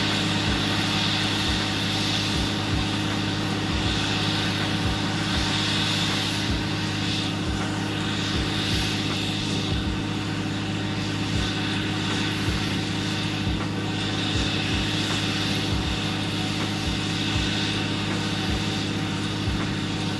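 Borehole drilling rig running steadily, a constant engine drone with a hiss on top that swells and fades.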